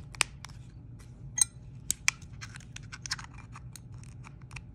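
Irregular small sharp clicks and scrapes of plastic: chrome side caps being slid and pressed onto a Mercedes smart key fob shell by hand, with a few louder snaps in the first couple of seconds.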